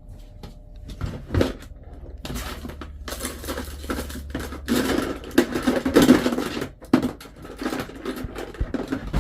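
Clicks, knocks and clattering of the Singer heavy-duty sewing machine's metal parts being handled while it is opened up for oiling, with a busy stretch of scraping and rattling in the middle.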